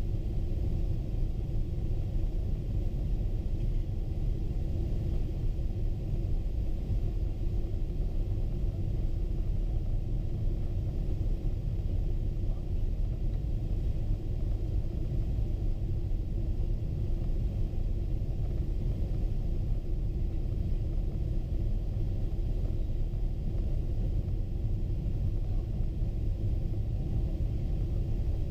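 Steady low rumble of engine and airflow noise inside the cabin of a Boeing 777-200 airliner descending on approach, even throughout with no distinct events.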